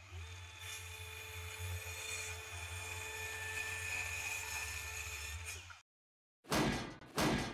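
Electric power tool running steadily, with a deep motor hum under a thin whine, cutting off abruptly after almost six seconds. Then two short, loud bursts of noise, about half a second apart.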